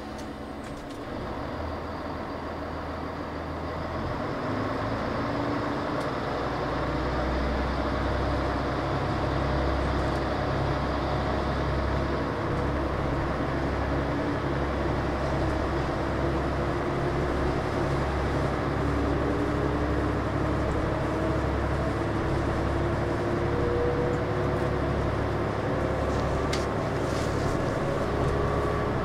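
Diesel engine of a KTR8000 railcar heard from inside the passenger cabin as the train pulls away and gathers speed: a low engine drone that grows louder over the first several seconds, with tones that slowly rise in pitch as the train speeds up. A few faint clicks come near the end.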